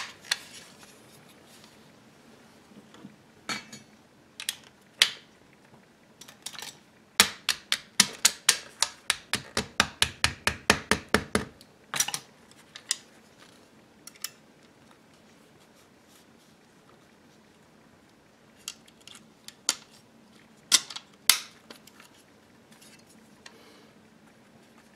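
Metal parts of a BRS-99 9 mm gun clicking and clacking as it is put back together by hand. Scattered sharp clicks, with a fast, even run of about twenty clicks lasting some four seconds, starting about seven seconds in, and a couple of loud clacks near the end.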